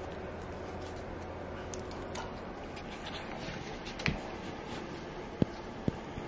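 Gloved hands shifting blankets and handling a newborn puppy, with soft rustling over a steady low hum. There is a louder knock about four seconds in and two sharp clicks near the end.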